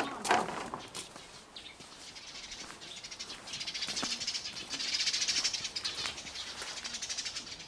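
Small birds chattering in a dense, rapid twitter that swells about halfway through and eases off near the end. It follows a brief thump at the very start.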